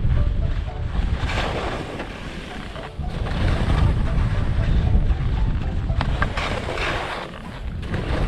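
Wind buffeting the microphone of a body-mounted camera, with the hiss and scrape of skis turning through chopped-up, unpacked snow on a steep run. The hiss swells with each turn, about three times.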